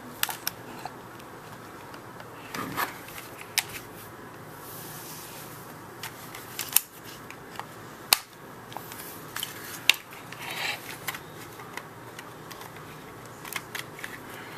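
Scattered plastic clicks and a few sharp snaps from an Xbox 360 controller's shell being worked open by hand, over a faint steady hiss.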